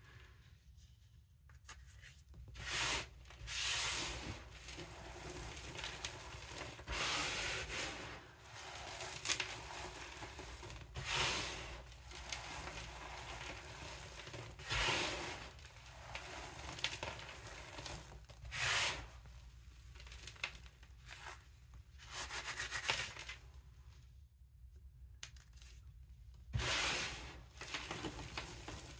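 Hands squeezing and crumbling clumps of gym chalk mixed with baking soda, making gritty crunching and rubbing sounds. About a dozen louder crunches of a second or less come at irregular intervals, with softer rustling between them.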